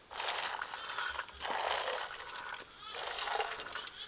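Chickpeas rattling as they are tipped from a steel bowl into a pot, mixed with animal calls that come in short bursts of about half a second to a second.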